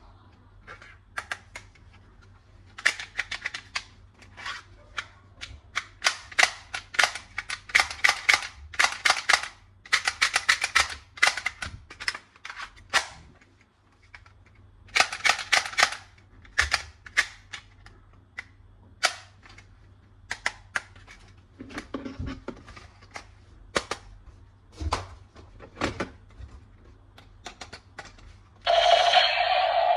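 Plastic toy guns clicking and clacking: single sharp clicks and fast runs of rapid clicking as the triggers and mechanisms are worked. Near the end comes a loud buzzing sound lasting about a second.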